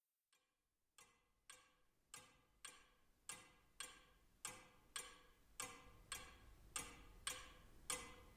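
Clock ticking faintly, a steady tick-tock of about two ticks a second that fades in about a second in and slowly grows louder.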